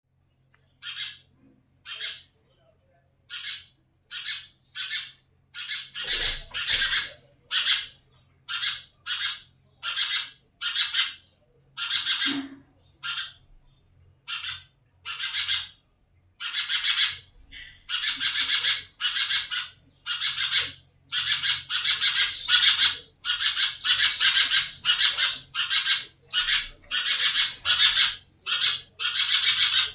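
House sparrow nestlings giving harsh, raspy begging calls, one at a time and about a second apart at first. From about halfway on they come faster and louder, in a near-continuous string.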